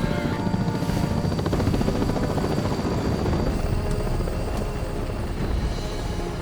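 Rotor chop of helicopter-style aircraft, a fast steady beat heavy in the bass, with film score music underneath.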